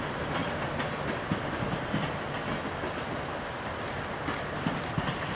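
Passenger cars of a train rolling steadily past, with a continuous rumble and irregular clicks and knocks from the wheels on the rails. A few brief high squeaks come about four seconds in.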